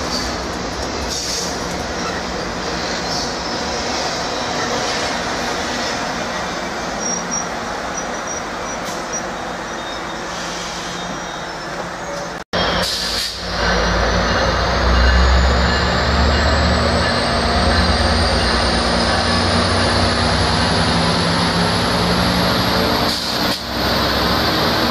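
Amtrak Pacific Surfliner bilevel passenger cars rolling past at close range as the train pulls out, with a steady rush of wheels on rail. After an abrupt break about halfway, the sound is louder and carries a deeper rumble, with a faint high whine rising slowly in pitch.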